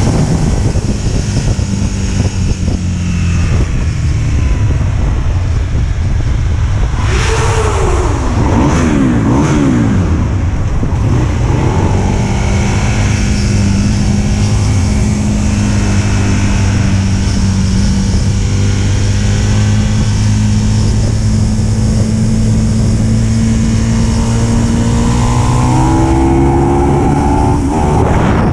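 Aprilia Tuono's engine heard from the rider's seat under steady wind rush. Its revs fall in a run of quick steps about seven to eleven seconds in as the bike changes down, hold steady while cruising, then climb again near the end under acceleration.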